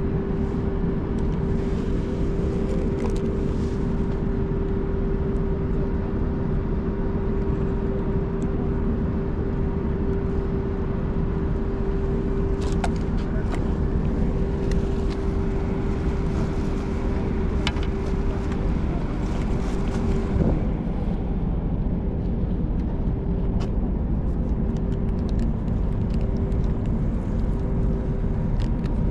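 A passing cruise ship's engines, a steady low drone with a constant hum running through it. A few faint clicks come in the middle.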